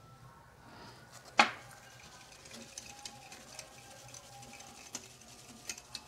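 A metal spoon stirring and scraping a wet turmeric spice paste around a bowl, with small clicks. About a second and a half in comes one sharp, loud clink of the spoon against the bowl.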